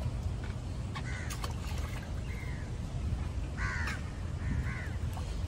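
Crows cawing: four short, harsh caws about a second apart, over a steady low rumble.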